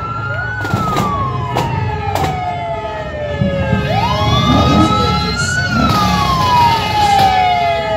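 Emergency vehicle siren wailing. The pitch climbs quickly and then falls away slowly, twice, each cycle about four seconds long, over a low rumble.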